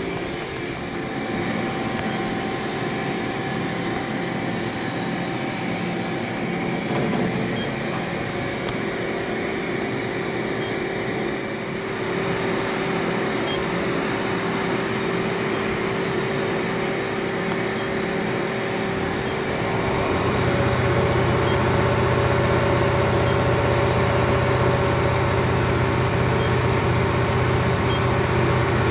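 Mori Seiki NT 4300 DCG/1500 turning and milling center running, a steady machine whine with a few held tones. About twenty seconds in, a low hum joins and it gets a little louder.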